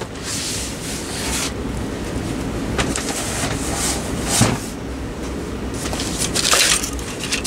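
Handling noise of small objects being moved about: rubbing and scraping in repeated bursts, with a couple of sharp knocks, over a steady low hum.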